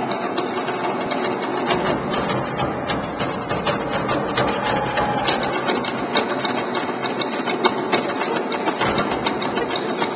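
Live show percussion: a dense, continuous rattling made of many small clicks over a steady low din.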